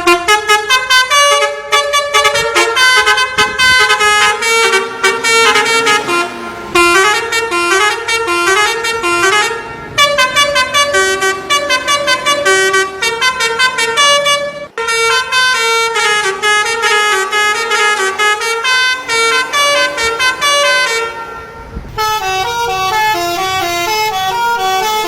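A bus's telolet horn, a set of multi-tone horns, playing a fast tune in quick stepped notes. It plays several phrases with short breaks between them.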